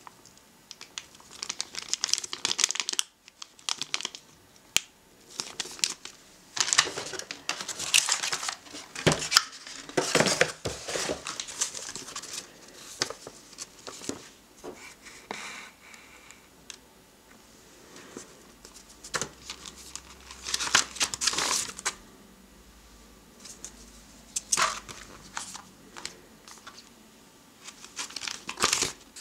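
Thin plastic packaging bags crinkling and rustling in irregular bursts as they are handled, along with paper booklets being leafed and shuffled.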